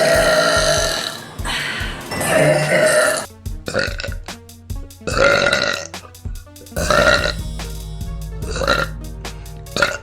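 A girl burping over and over: a long burp of over a second at the start, then a run of shorter burps every second or two. Background music with a faint beat plays under them.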